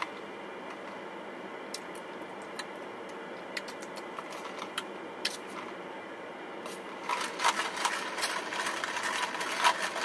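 Steady low hum inside a car cabin with a few faint ticks; about seven seconds in, ice and a straw start rattling against a plastic cup as an iced drink is stirred.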